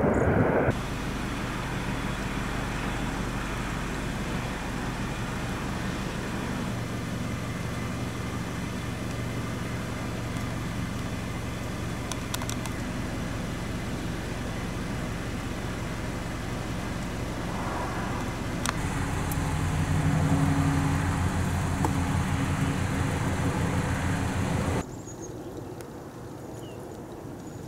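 Steady engine or motor hum, growing louder about nineteen seconds in and then dropping away sharply to a quieter background about twenty-five seconds in.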